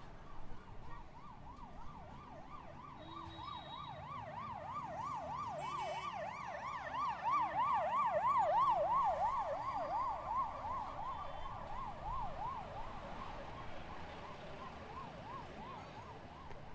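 Emergency vehicle siren on a fast yelp, its pitch sweeping up and down several times a second; it grows louder to a peak about halfway through and then fades as it passes.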